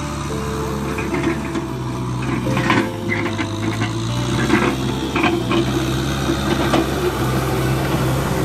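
Kubota M6040 SU tractor's four-cylinder diesel engine running steadily under load, with the rotary tiller behind it rattling as it churns dry soil. A few short clatters come in the middle seconds.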